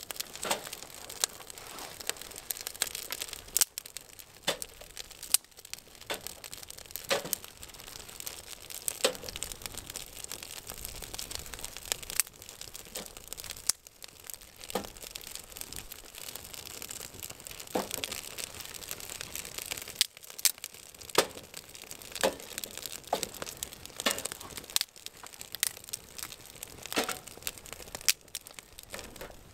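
Small twig fire crackling in a folding steel firebox, with irregular sharp snaps and pops from the burning sticks.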